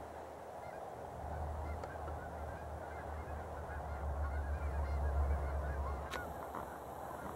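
A flock of Canada geese honking, many birds calling over one another, a chorus typical of a flock getting ready to take off. A low rumble runs underneath.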